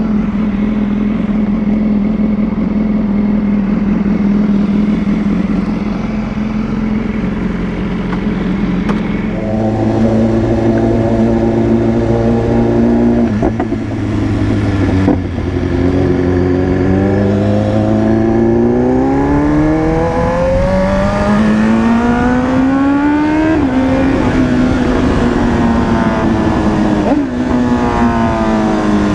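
BMW S1000RR inline-four engine running, steady at first, then its pitch climbs in long rising pulls from about halfway, drops sharply a little past three-quarters in, and climbs again near the end.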